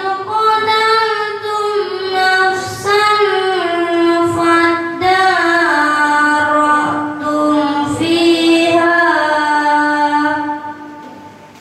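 A boy's high voice reciting the Quran in tartil style, chanting long held notes that glide from pitch to pitch, with brief breaks for breath; the phrase trails off about ten and a half seconds in.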